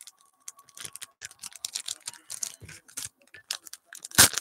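Crinkling and clicking of plastic card sleeves and wrapped packs as trading cards are handled, with a louder crinkle about four seconds in.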